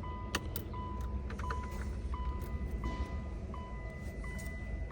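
Light metal clicks and scrapes of a locksmith's pick tool being worked into a car ignition lock cylinder. A faint steady high tone sounds behind them, stopping and starting.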